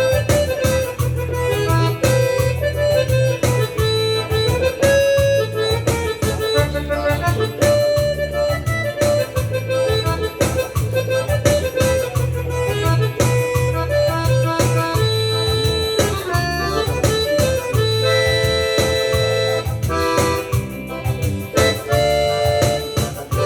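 Yamaha PSR-SX600 arranger keyboard being played: a melody line over its automatic accompaniment, with a steady bass line and a regular drum beat.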